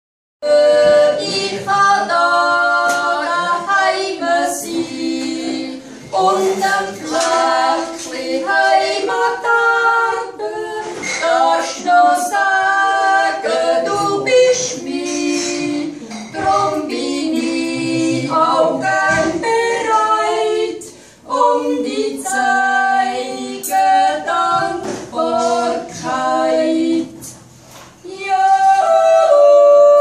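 Two women singing a Swiss folk song a cappella in two-part harmony, with short pauses between phrases.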